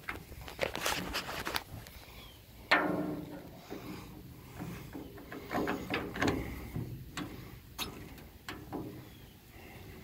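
Metal clicks and knocks from working on the steel cab door and its locking handle hardware of an M35A2 army truck, with one loud ringing knock about three seconds in and a quick run of clicks a few seconds later.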